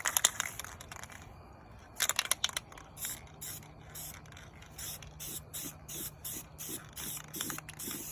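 Aerosol spray can rattled, its mixing ball clicking, at the start and again about two seconds in. It is then sprayed in short, quick hissing bursts, two or three a second.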